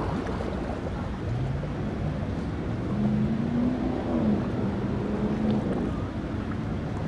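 Engines of speedboats running past at speed: a steady drone whose pitch rises about a second in and swells and dips near the middle, over wind noise on the microphone.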